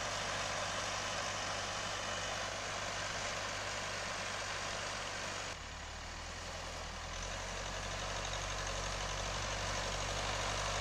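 Tractor's diesel engine running steadily as it tills the field, with an even hiss over it. The sound dips briefly about halfway through, then comes back.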